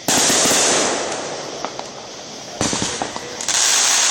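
Fireworks going off: a sudden loud burst of dense crackling at the start that dies away over about a second, then a run of rapid pops and crackles and another loud crackling burst near the end.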